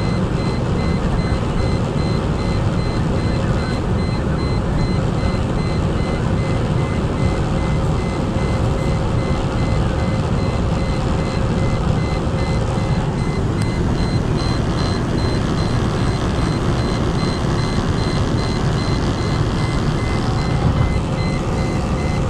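Inside a Mercedes-Benz E240 running flat out at about 220–230 km/h: a loud, steady rush of wind and road noise over the V6 engine. A faint, rapidly pulsing high tone sits above it.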